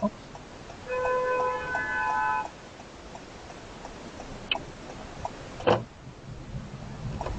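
A car's turn-signal indicator ticking inside the cabin, about three ticks a second. About a second in, a loud held tone with several pitches sounds for about a second and a half. Two sharp knocks come later, the second the loudest sound.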